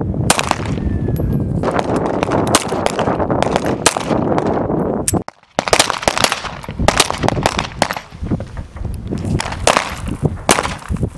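Beretta M9 9mm pistols firing: many sharp shots at an irregular pace, some close together, with a brief break about five seconds in.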